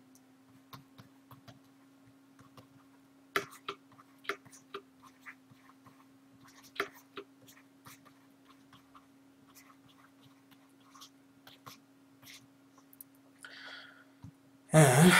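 Faint, scattered clicks and taps of a pen stylus on a drawing tablet while handwriting, over a steady low hum. Near the end a dog makes a short, loud noise.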